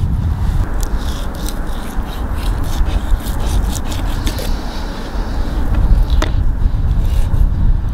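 Knife cutting and scraping raw beef off the rib bone of a tomahawk steak on a wooden cutting board: a run of short rasping strokes, dense at first and sparser later, over a steady low rumble.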